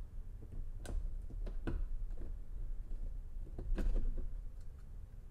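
Hard plastic clicks and snaps as a cargo light assembly is pried out of a Toyota 4Runner's rear hatch trim panel by hand. The clicks come a few times, the loudest nearly four seconds in.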